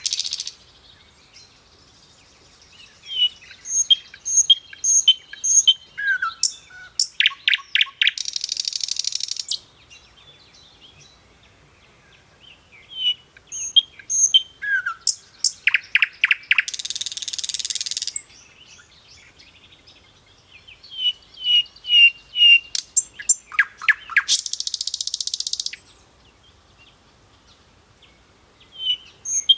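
A songbird singing the same phrase three times, starting again near the end: a string of high chirps, a few clear falling notes, a quick run of strokes and then a harsh buzz lasting about a second and a half, with quiet pauses between phrases.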